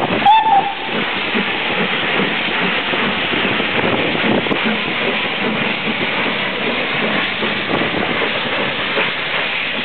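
Steam hissing steadily from the GWR King-class 4-6-0 steam locomotive 6024 King Edward I, with a brief high pitched tone about a quarter of a second in.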